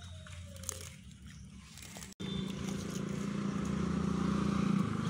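Steady low engine hum. It breaks off sharply about two seconds in and comes back louder.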